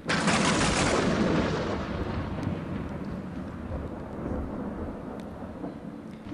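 Recorded thunder sound effect: a sudden crash that rumbles on and slowly fades over several seconds.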